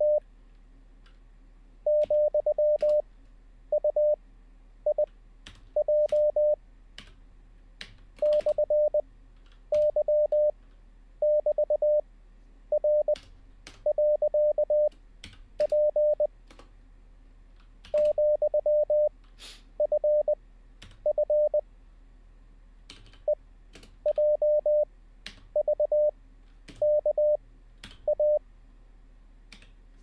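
Computer-generated Morse code practice tone at 600 Hz, each character sent at 20 words per minute with long Farnsworth gaps (5 wpm effective), a new character about every second. Computer keyboard keys click between the characters as they are copied.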